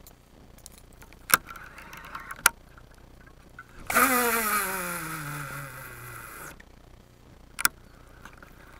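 Baitcasting reel's spool whirring as a swimbait is cast, its pitch falling steadily as the spool slows, for about two and a half seconds before it stops. Three sharp clicks: two before the cast and one about a second after it.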